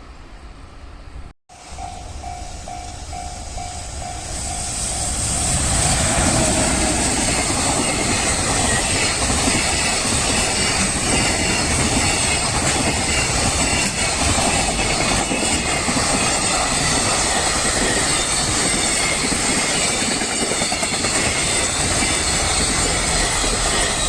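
Japanese level-crossing warning bell ringing in quick repeated strokes for a couple of seconds. A train then runs over the crossing: a loud, steady rumble with clickety-clack of wheels over rail joints that holds for about twenty seconds.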